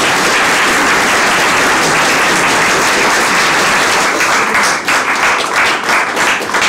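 Small audience applauding: dense, even clapping that thins out after about four seconds into scattered separate claps.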